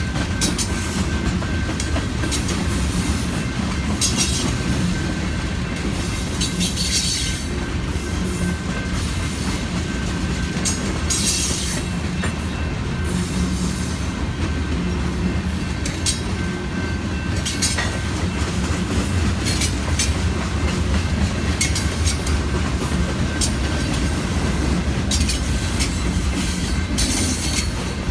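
Freight cars of a manifest train rolling past, a steady rumble of steel wheels on rail with clicks from the rail joints and short bits of high wheel squeal here and there.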